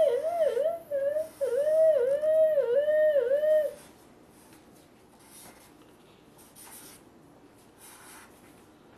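A child's high voice making a siren-like wail for about four seconds, its pitch dipping and rising in swoops about twice a second, with short breaks. After that there are only faint scratches of a marker drawing on paper.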